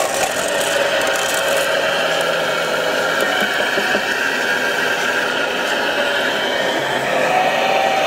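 RC scale hydraulic excavator working its boom and bucket: the hydraulic pump whines steadily, and the whine shifts a little in pitch as the arm digs and lifts.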